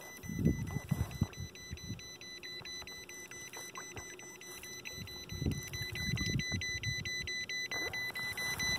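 Humminbird fish finder's shallow-water alarm going off: a steady run of high beeps, several a second, sounding because the water under the boat is only about 3 feet deep. Low gusts of wind noise on the microphone come and go underneath and are the loudest moments.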